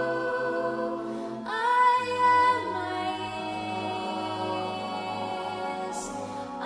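Mixed-voice a cappella ensemble singing sustained, layered chords without instruments. About a second and a half in, higher voices enter and swell to the loudest moment, and a brief hiss comes about six seconds in.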